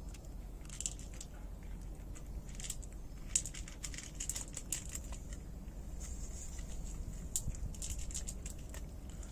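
Irregular light clicks and crackles, with a few sharper ticks about three and a half and seven and a half seconds in.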